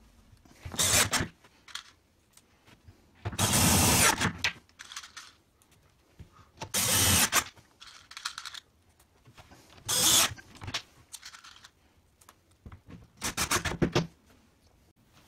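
Bosch cordless driver running in five short bursts, about every three seconds, driving screws through plastic corner blocks into chipboard wardrobe panels.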